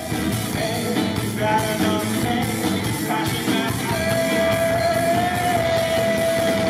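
Rock song with drums, guitar and a male lead singer over a steady beat; about four seconds in the singer holds one long note.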